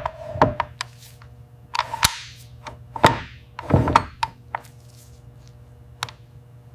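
Metal rifle parts handled during assembly: a metal bolt-carrier block slid into a rifle receiver, giving a string of sharp clicks and clacks with a few short scraping slides between them, over a faint steady hum.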